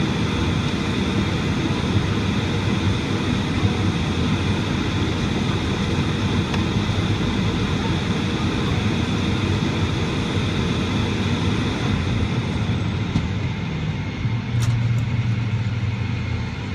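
Steady cabin noise inside a Boeing 757-200 on the ground before takeoff: an even rumble and rush of engines and air conditioning. About fourteen seconds in, a low hum swells for a couple of seconds, with a few faint clicks.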